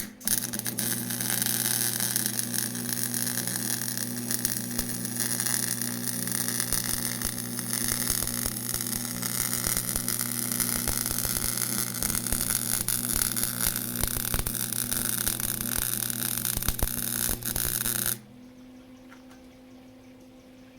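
Electric arc welding on a chopper frame: a continuous crackling hiss with a steady electrical buzz, struck sharply at the start and held for about 18 seconds before cutting off suddenly as the arc is broken.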